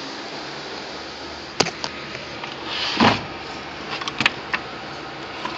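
Handling noises while cables are plugged in behind a desktop computer: a few light clicks and knocks, and one louder rub about three seconds in, over a steady hiss.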